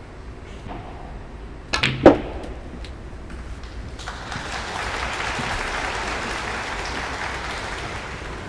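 A snooker cue strike and a sharp click of snooker balls colliding, about two seconds in. From about four seconds in, an audience applauds the pot.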